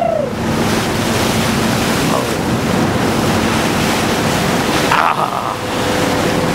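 Steady rush of seawater along a moving ship's hull, with wind buffeting the microphone.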